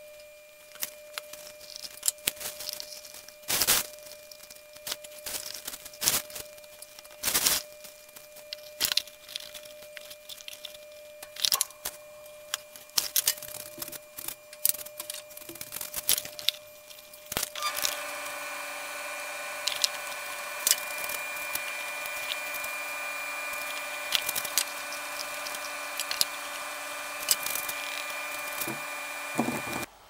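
Knocks and clicks of pallet-wood birdhouse panels and bar clamps being handled during a glue-up, scattered throughout. A little over halfway through, a steady hum of several tones comes in under the knocks.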